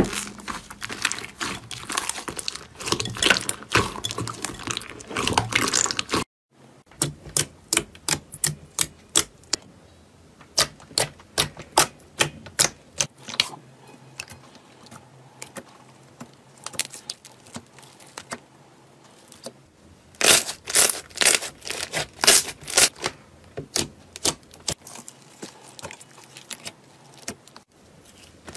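Slime squeezed and pressed by hand, giving a dense wet crackle at first. After a brief break it gives a run of separate sharp clicks and pops, several a second, louder for a few seconds about two-thirds of the way in.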